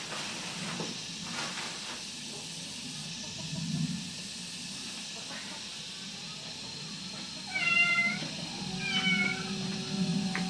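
Two short, high animal cries, one about seven and a half seconds in and another about nine seconds in, over a steady hiss.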